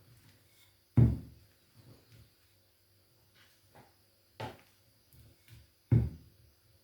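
Three sharp knocks or thuds, about a second in, near four and a half seconds and just before six seconds, with a few faint taps between them.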